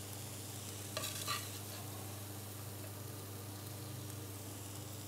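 Steady low kitchen hiss with a faint hum, and a couple of light scrapes of a serving utensil in a pan of vegetables about a second in.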